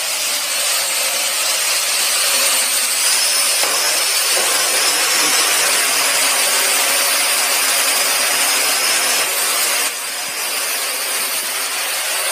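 Quadcopter drone's rotors running steadily at high speed, a whirring buzz with a thin high whistle in it, dipping slightly about ten seconds in. The drone is pinned at the ceiling and ignoring commands because an ultrasonic pulse from an animal repeller has spoofed its ultrasonic altitude sensor.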